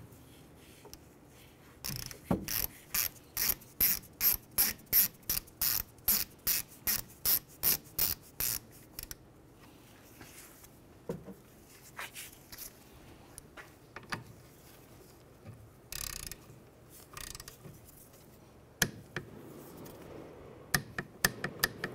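Hand ratchet wrench clicking as it tightens a brake caliper bolt: a steady run of clicks, about two and a half a second, for some seven seconds, then a few scattered clicks and knocks with a brief hiss in between.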